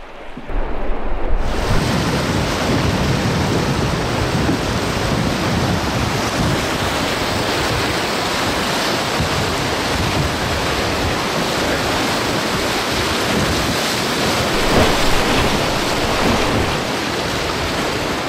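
Rushing whitewater of river rapids churning around a drift boat, with wind buffeting the microphone; the loud, steady rush starts suddenly about a second and a half in.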